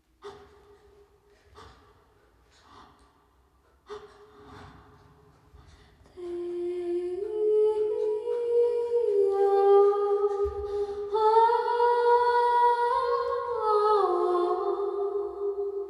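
Wordless humming of long held notes that move in steps, several pitches sounding together. It is faint for the first six seconds, then becomes much louder and fuller.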